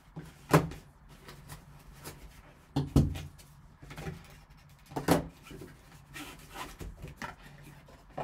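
Cardboard card box and its foam insert handled by gloved hands: a few sharp knocks, about half a second, three seconds and five seconds in, with lighter taps and rustles between, as the box parts are lifted and set down.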